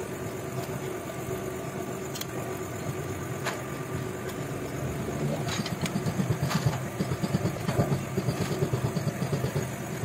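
An engine running at idle with a steady low rumble that turns more uneven and pulsing about halfway through, with a few light metallic clicks.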